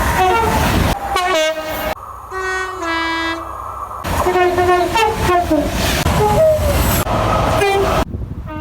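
Two-tone train horns sounding one after another, each stepping between a higher and a lower note, with abrupt changes from one horn to the next.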